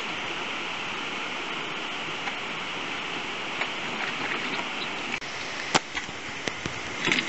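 Steady rushing of running water. Near the end, a few sharp knocks and clacks from an off-road mobility scooter's wheels going over rocks.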